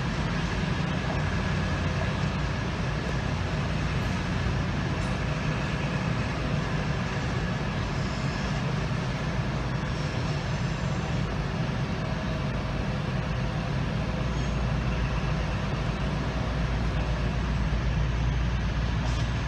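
East Midlands Trains Class 222 Meridian diesel multiple unit running past, a steady low rumble from its underfloor diesel engines that grows a little louder near the end.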